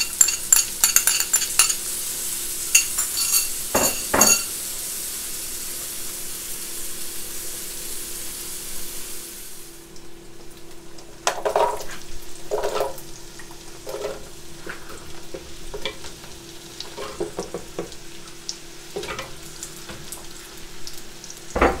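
Sliced onions sizzling in butter in a steel stockpot, with a wooden spoon clicking and scraping against the pot as they are stirred. About ten seconds in the sizzle cuts off suddenly, and after that come scattered soft knocks as chunks of potato and carrot are tipped from a wooden board into the pot.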